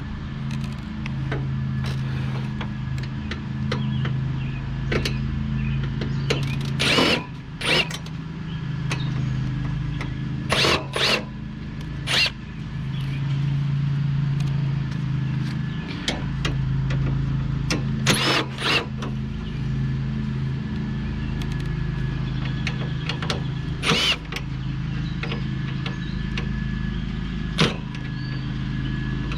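A steady low mechanical hum throughout, with short loud clatters or knocks every few seconds.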